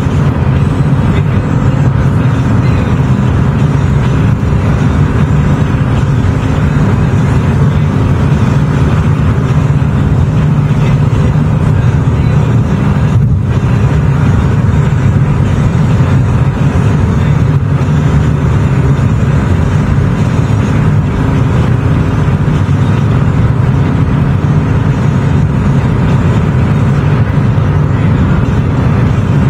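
A car driving along the road: a steady, loud, low rumble of tyre and engine noise.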